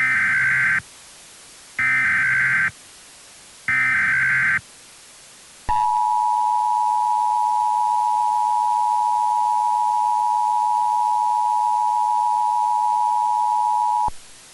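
Emergency Alert System SAME header: three short bursts of warbling digital data tones, about two seconds apart. These are followed by the two-tone attention signal, held steady for about eight seconds, which marks the start of an emergency alert broadcast.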